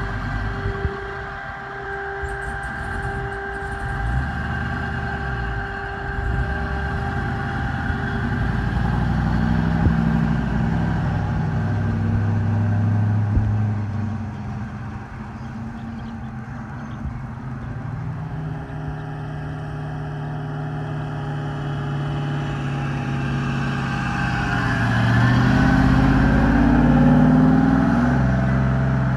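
1940 Ford pickup's LS3 V8, built to about 550 hp, running as the truck drives around slowly, its note rising and falling. It climbs more strongly near the end as the truck accelerates.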